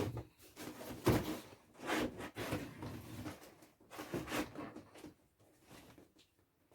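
Cardboard box and packaging being handled: irregular rustling and scraping with a few knocks, the sharpest at the start and about a second in.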